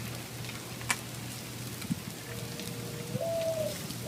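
Salmon fillets sizzling over a charcoal kettle grill, a steady crackling hiss with a few sharp pops. About two seconds in, a clear whistle-like note starts and steps up in pitch a second later, holding steady.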